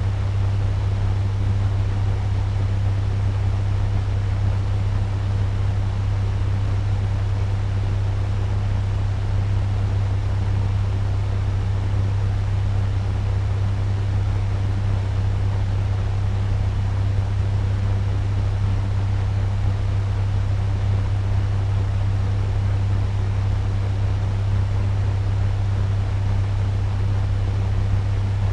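Turbo fan running steadily at medium speed: an even rushing of air over a strong low motor hum that doesn't change.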